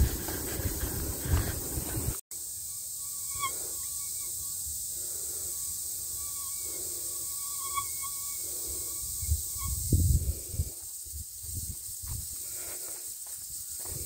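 Footsteps of a person running on a forest trail, dense thudding for the first two seconds, then softer steps about once a second with a cluster of heavier thumps near the ten-second mark. A steady high hiss runs underneath.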